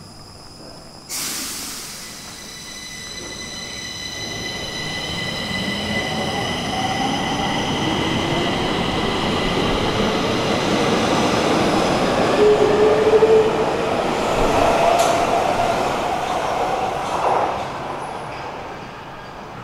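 Stockholm metro train running. About a second in a high squeal of several steady tones sets in suddenly and fades slowly, while a motor whine rises steadily in pitch as the train picks up speed. The noise grows louder to a peak, then eases near the end.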